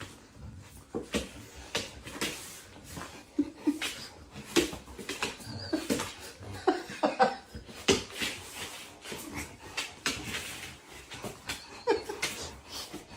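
A dog making short vocal sounds, some falling in pitch, among many scattered clicks and knocks.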